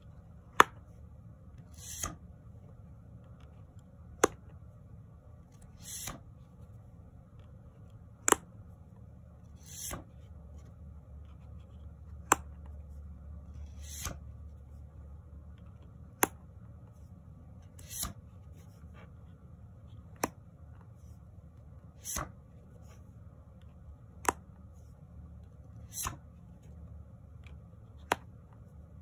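Tarot cards being flipped off the top of a deck one at a time, about one card every four seconds. Each card gives a soft swish and a sharp paper snap, so the two sounds alternate about every two seconds over a low steady hum.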